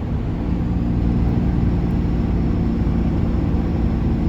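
Turbo-diesel pickup engine pulling at steady revs under load with a loaded bed, heard from inside the cab as an even drone.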